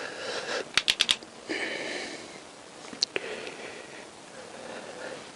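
Torque wrench clicking on a motorcycle engine's sump bolts as they are tightened to 9 foot-pounds. A quick run of about four sharp clicks comes about a second in, and a single click follows around three seconds. A short breathy sniff is heard between them.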